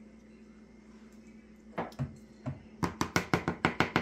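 Three separate knocks, then a quick run of about ten sharp taps in a little over a second near the end: a plastic measuring spoon rapped against the rim of a plastic mixing bowl to shake off mayonnaise.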